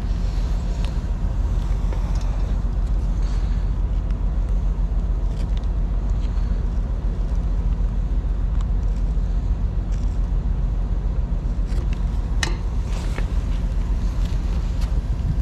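Vehicle engine idling steadily, a low rumble, with a couple of sharp clicks about twelve and a half seconds in.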